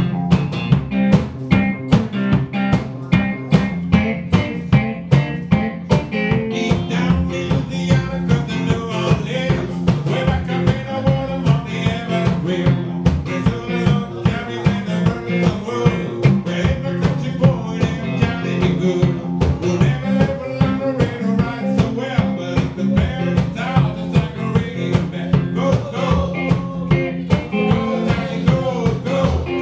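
Live blues with electric guitar and singing over a washtub bass's low, thumping notes, with a steady beat that is strongest in the first few seconds.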